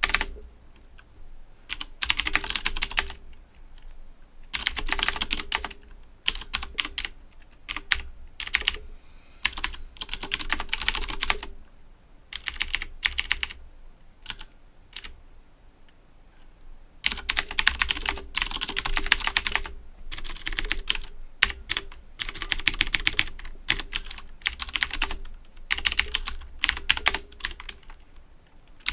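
Owltech OWL-KB109BM II mechanical keyboard with clicky Cherry MX Blue switches being typed on: fast runs of keystrokes in bursts of a second or two, broken by short pauses and one longer lull of only scattered clicks about halfway through.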